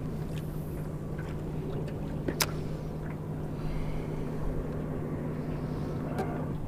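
Electric trolling motor running with a steady low hum, with a couple of sharp clicks over it, the loudest about two and a half seconds in.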